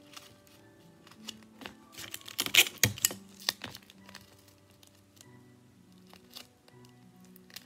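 Paper and tape crinkling and crackling as a stuffed paper squishy is handled and sealed, in a loud cluster of crackles about two to three seconds in, over soft background music.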